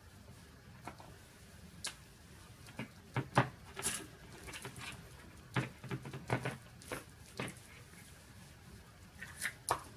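Scattered light clicks and taps of a Kinder Surprise's yellow plastic toy capsule and a small plastic toy figure being handled and set down on the table. The sharpest clicks come about three and a half seconds in and again near the end.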